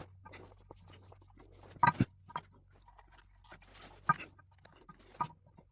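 Irregular clicks and knocks of tools and metal being handled, the loudest pair about two seconds in, over a low steady hum.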